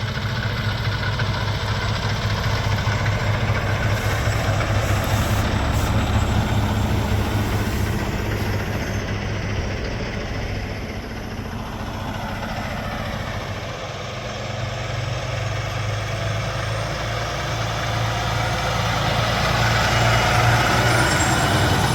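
Semi-truck's diesel engine running as the truck pulls away, with a steady low hum that grows louder near the end.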